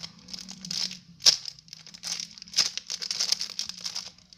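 Plastic packaging crinkling as it is handled, irregular and crackly, with a sharp crackle about a second in and another about halfway through, over a faint steady low hum.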